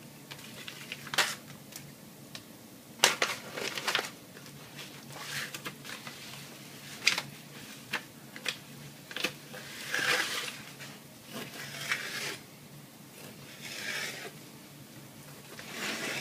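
Kitchen knife cutting raw salmon fillets into portions on paper: scattered knocks of the knife and fish being handled, and short rustles of the paper.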